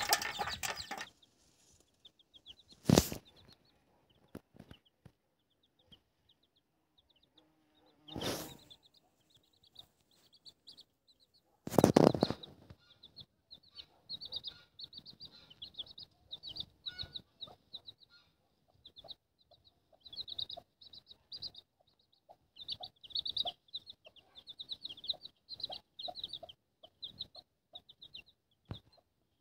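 Young chicks peeping in quick, high, repeated cheeps while the mother hen clucks softly. Three louder rustling bursts come about 3, 8 and 12 seconds in.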